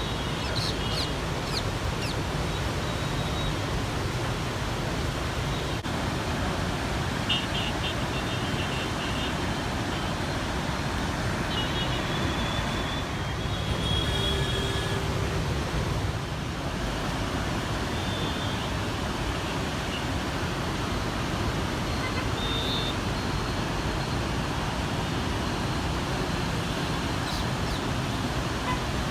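Steady rushing roar of heavy floodwater pouring through the open barrage gates, mixed with road traffic. A few short, high beeps come and go in the middle.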